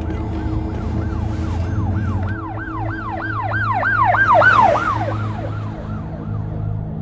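Emergency-vehicle siren in a fast yelp, sweeping up and down about three times a second. It grows louder to a peak about four and a half seconds in, then fades away.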